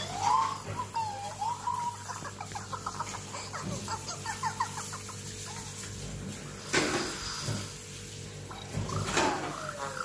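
Cartoon egg-bird characters chirping and clucking in quick squeaky, gliding calls, played through a laptop speaker. About seven seconds in comes a short swish, and near the end a second swish with a sound sliding down in pitch.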